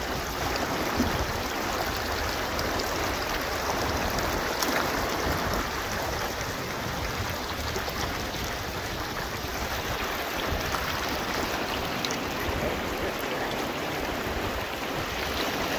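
Shallow, fast-moving creek water rushing steadily over rocks, where a small sluice box is set in the current.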